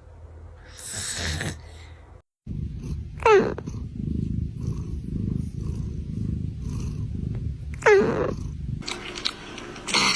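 A sleeping cat snoring: a steady, low rumbling snore, broken twice, about four and a half seconds apart, by a short squeaky whistle that slides down in pitch. A breathier snore comes about a second in.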